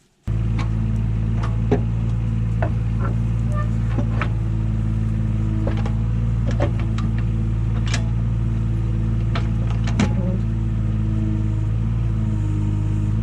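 Excavator engine running steadily, with scattered sharp metallic clanks and knocks over it, as the other machine is used to push the track idler back in.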